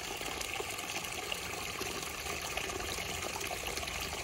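Steady trickle of running water, an even hiss with no distinct splashes.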